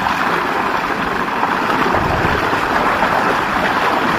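Heavy jet of water gushing from a tube-well water motor's outlet pipe and splashing into a stone tank: a loud, steady rush.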